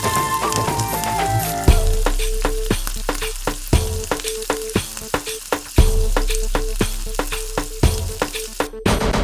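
Bread omelette sizzling as it fries in a pan, with short scraping and tapping strokes from stirring, over background music with sustained tones and a heavy bass beat that comes in after a couple of seconds.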